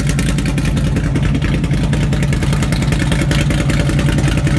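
A car engine idling steadily and loudly with a rapid, even exhaust pulse.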